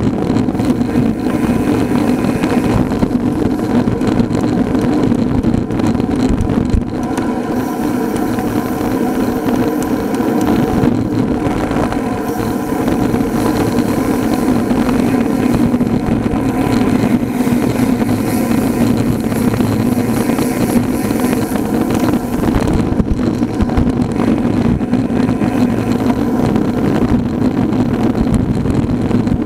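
Steady rush of wind and road noise on the microphone of a camera riding along on a road bike at speed, with a steady low hum running under it.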